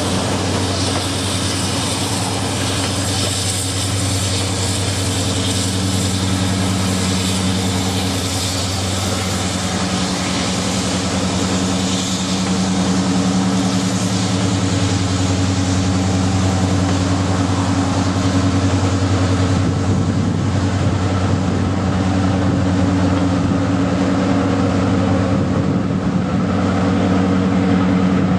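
Diesel engine of a British Rail Class 43 HST power car running steadily at idle, a deep even hum with a hiss above it, swelling slightly partway through.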